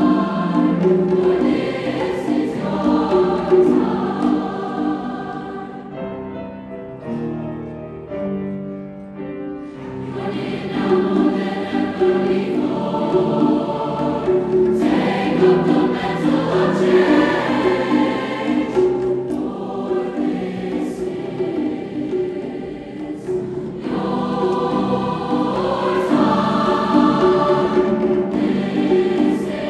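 Large junior high choir singing with piano accompaniment. About six seconds in, the sound thins and quietens for a few seconds, then the full choir swells back in.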